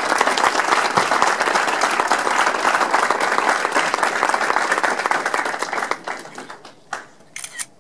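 Audience applauding: dense clapping that fades out about six seconds in, followed by a few last scattered claps near the end.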